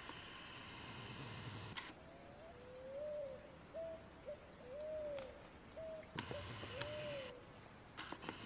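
A bird calling: a series of about six short, low notes, each rising and falling, about one a second. Near the start and again about six seconds in, the camcorder's zoom motor whirs for a second or so, and a few handling clicks come near the end.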